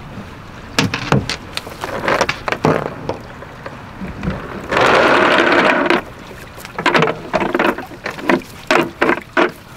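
Cast net being worked at a boat's stern: its lead-weighted line rattles and knocks against the fiberglass deck in a run of short clicks. Just over a second of loud rushing water comes about five seconds in.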